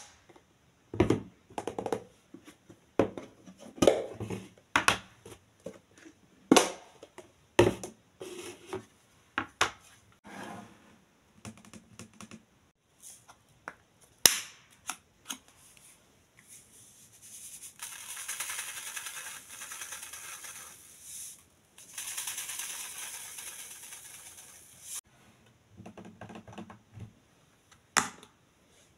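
Clear plastic storage containers and their snap-on lids clicking and knocking against each other and the stone countertop as they are handled. This is followed by two long hissing pours of grains shaken from a plastic shaker into the containers.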